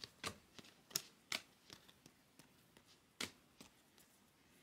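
Bowman Chrome trading cards being flipped through by hand, each stiff card slapping off the stack with a short click. About a dozen irregular clicks, the loudest in the first second and a half and one a little past three seconds, thinning out toward the end.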